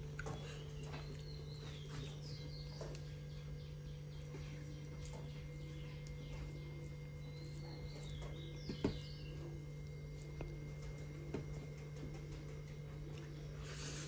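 Quiet eating: a few soft clicks of fingers against a metal plate while rice is eaten by hand, over a steady low hum, with faint bird chirps a few times.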